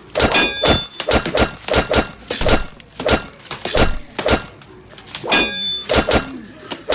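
A quick, uneven series of loud thuds and crashing impacts, about three a second, with a short ringing clink twice.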